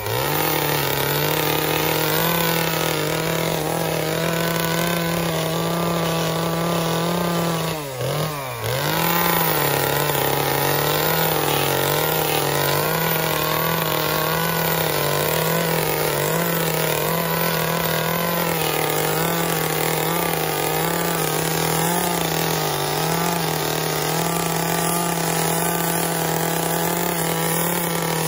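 Two-stroke chainsaw running at high revs as it carves wood, its pitch wavering under the load. About eight seconds in, the revs drop sharply for a moment and climb back.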